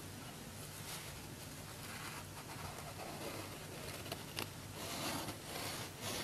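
Quiet handling noise of hands turning a ball of wet clay and a terracotta clay tube, with a few light clicks over a steady hiss.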